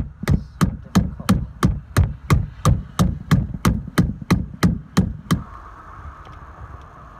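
Battery cable terminal clamp being tapped down onto a new car battery's post with a hand tool: a steady series of sharp knocks, about three a second, that stops about five seconds in.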